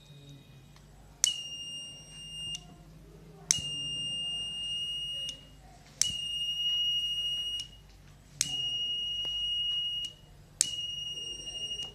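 Buzzer of a homemade 9-volt flame-sensor fire alarm sounding in five high-pitched beeps, each about a second and a half long and about two and a half seconds apart, with a sharp click at the start of each beep.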